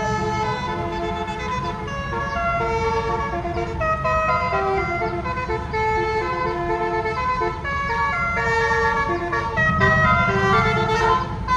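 A bus's Basuri melody horn playing the ice-cream-seller jingle as a run of short, stepped horn notes. A steady low rumble runs underneath.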